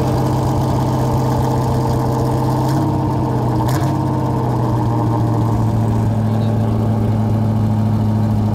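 1968 Ford Mustang fastback engine idling steadily through its dual exhaust, with a couple of brief clicks near the middle.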